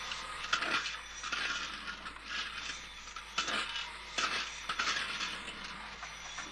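Toy train on the floor track, with irregular clicking and scraping rattles as it is handled and runs along the rails.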